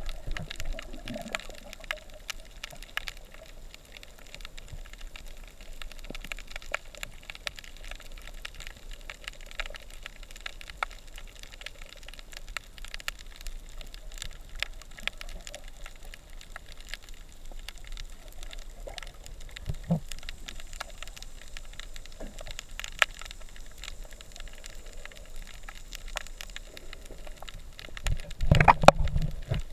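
Underwater crackling of a coral reef: a steady patter of many small clicks over a low water hiss. Near the end comes a louder burst of rushing water and rumble.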